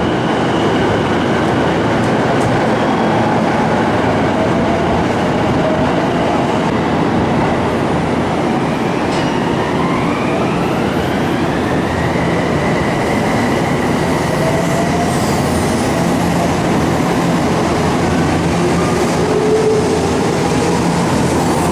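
Electric commuter train running through the station at close range, with the loud rumble of wheels on rail and a motor whine that rises steadily in pitch partway through as the train accelerates.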